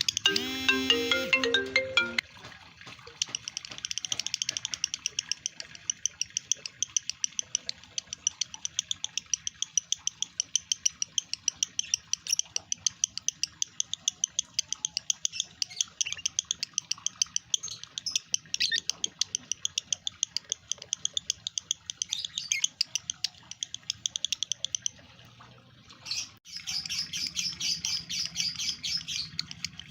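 Lovebird song: a long, fast run of high chattering chirps with a short break near the end. A melodic chime sequence plays for the first two seconds.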